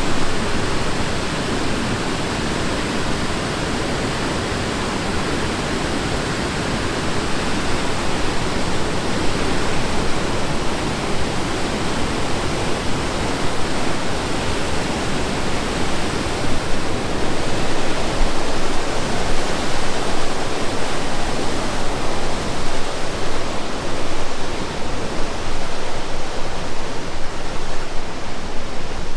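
Rushing water of the Tallulah River in its gorge: a steady, dense rush, becoming more uneven in loudness about halfway through.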